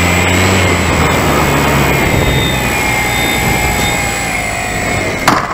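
Onboard sound of a Dynam Waco electric RC biplane: brushless motor and propeller whining over wind rush on the airframe, the whine falling slowly in pitch as the throttle comes off on the landing approach. A sharp knock near the end, as the wheels touch down.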